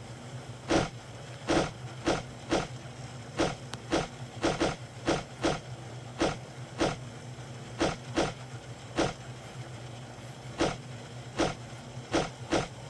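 Irregular knocks and clacks from objects being handled and set down, about one to two a second, over a steady low hum.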